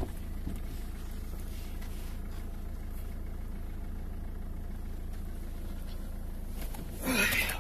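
Mercedes-Benz car engine idling steadily, heard from inside the cabin, after a single thump at the very start.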